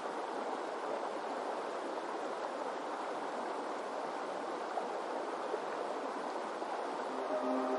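Steady, even rush of flowing river water. Soft sustained ambient-music tones come in near the end.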